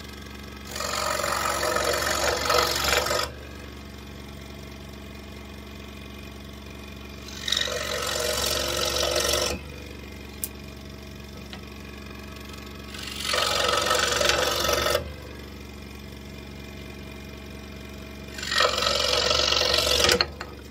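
Scroll saw running with a steady hum, its blade cutting the corners off small wooden blocks one after another: four cuts of about two seconds each, each much louder and noisier than the idling saw between them.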